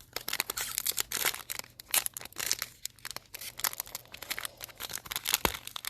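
A Donruss football card pack's wrapper being torn open and crinkled, a dense run of crackling rustles.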